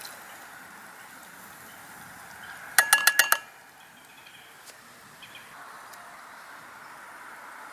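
A quick run of about six ringing metal clinks on a camp cooking pot, about three seconds in and lasting half a second, over a steady faint background hiss.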